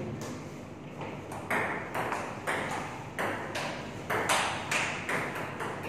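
Table tennis rally: the celluloid-type ball clicking off the paddles and bouncing on the table, a quick series of sharp clicks at about two a second.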